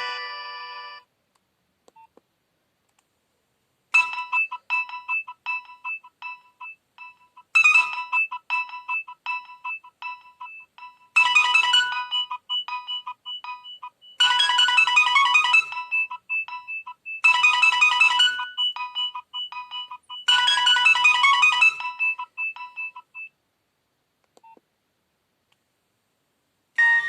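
Nokia 6030 mobile phone ringtone: a short electronic melody that starts about four seconds in and repeats. Four louder passages add a beat and a bass line. It stops a few seconds before the end, and the next tone begins at the very end.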